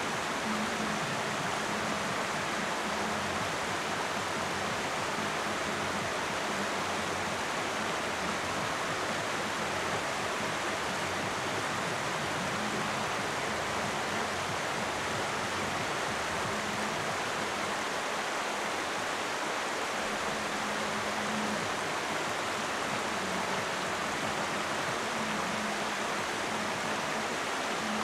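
Steady, even sound of a fast mountain stream running over boulders.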